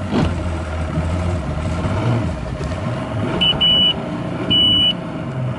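Mercury outboard motor running steadily at low speed. From about three and a half seconds in, a shrill electronic warning beeper sounds in repeated beeps, about one a second, over the engine.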